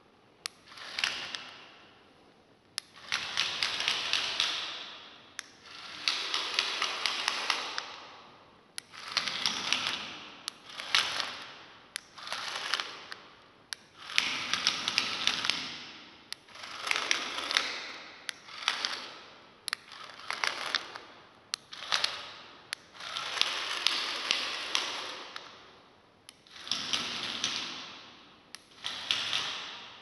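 A small robot car's DC gear motors whirring in short bursts of one to three seconds, over a dozen times, as it is driven by remote control, with a few sharp clicks between runs.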